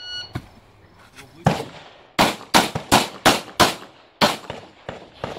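Electronic shot timer's start beep, then a handgun fired seven times in quick succession. After the first shot comes a short pause, then five shots at about three a second, then a last shot after a brief gap.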